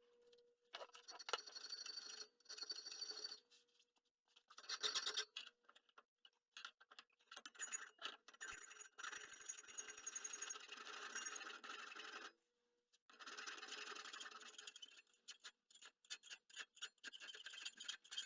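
Repeated scraping strokes of a hand tool, a file or saw, working the hardened steel of an industrial saw blade, in several bursts broken by short silent gaps, with a high metallic ring over the strokes.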